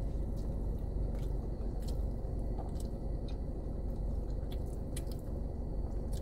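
Close-up chewing of a mouthful of fried fish sandwich, with scattered small wet clicks from the mouth, over a steady low hum.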